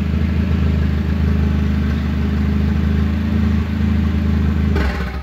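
Turbocharged Toyota 3RZ 2.7-litre four-cylinder engine running steadily at idle in the truck.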